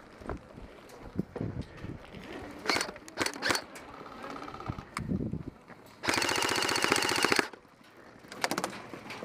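Airsoft electric rifle firing a full-auto burst of about a second and a half, a fast even rattle of shots, then a shorter burst about a second later. A few scattered single snaps come earlier.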